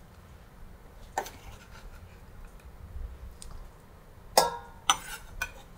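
Salad being mixed by hand in a stainless steel bowl, with a few sharp metallic clinks against the bowl that ring briefly: one about a second in and three in quick succession near the end.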